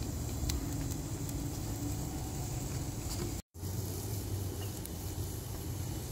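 Steady low rumble of outdoor background noise, with a few faint light clicks. The sound cuts out completely for a split second about halfway through.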